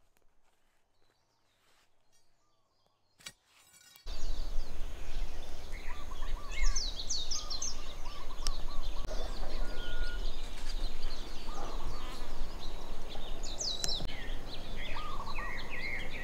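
Near silence for about four seconds, then outdoor sound cuts in suddenly: many birds chirping and calling over a steady low rumble of wind on the microphone.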